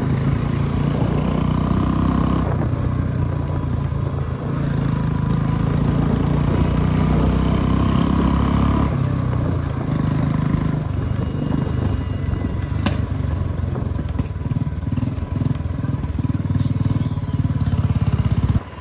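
Royal Enfield Bullet 350 single-cylinder engine running steadily under way through a loud aftermarket 'pataka' silencer, its exhaust beat filling the low end.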